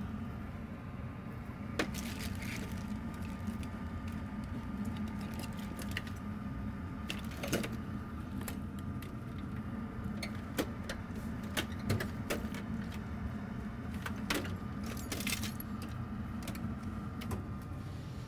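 Rummaging through a stash of cables and adapters, with small parts clicking, clattering and rattling in irregular knocks, over a steady low hum.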